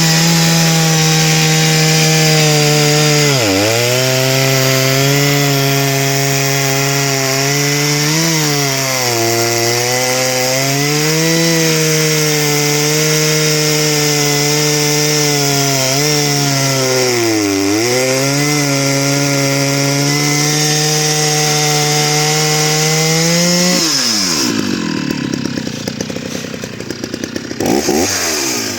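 Husqvarna 480CD 77cc two-stroke chainsaw running at full throttle while cutting wood, its engine pitch sagging several times as the chain loads up in the cut. Near the end the throttle is released and it drops to idle, with one brief rev before the end.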